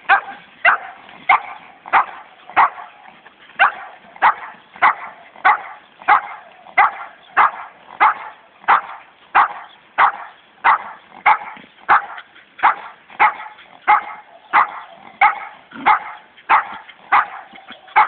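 A dog barking over and over in a steady rhythm, about one and a half barks a second, at a hedgehog rolled into a ball.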